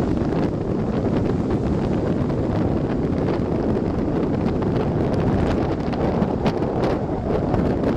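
Strong gusty sea wind buffeting the microphone: a steady, loud rumbling roar.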